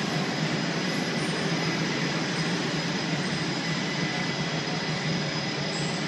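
Steady, loud rushing noise of machinery in an aircraft hangar on the flight line, with a faint steady high whine on top.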